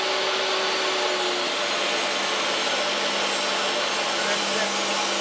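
Table saw running a Hans & Baümier circular blade through an oak board: a steady whir with a low hum underneath. The blade cuts without the high-pitched noise that other blades make, and sounds almost silent.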